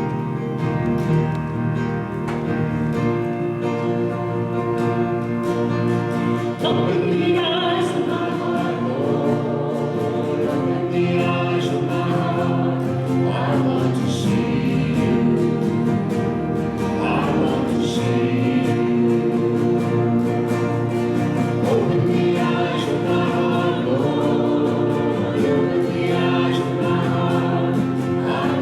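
Church worship music: an instrumental introduction, then a group of voices comes in singing with the accompaniment about a quarter of the way through.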